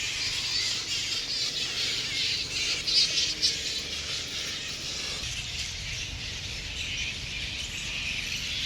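Dense chorus of high chattering animal calls, continuous throughout, with a few louder calls about three seconds in.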